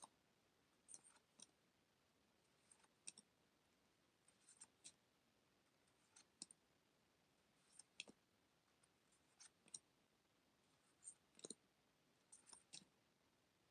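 Faint, soft clicks and light scrapes of prism trading cards being handled and set down one after another, often two at a time, roughly every second.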